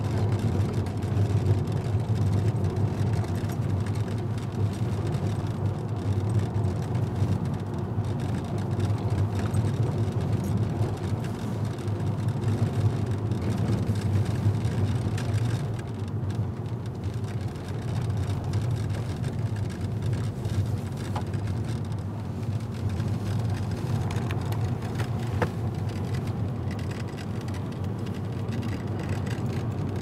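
Steady road and engine rumble of a moving car, heard from inside the cabin.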